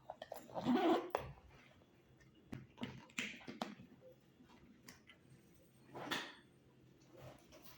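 A dog barking in three short bouts, about a second in, around three seconds, and near six seconds, with scattered small clicks and knocks between them.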